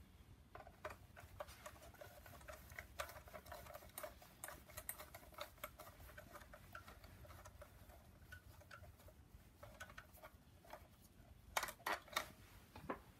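Hand ratchet clicking in quick runs of light ticks as bolts are worked loose on an engine, with a few louder metal clinks near the end.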